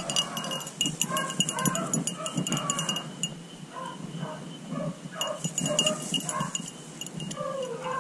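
Beagles baying as they run a rabbit: a string of short, pitched bawls from more than one dog. A steady high ringing and light crackling sit behind them.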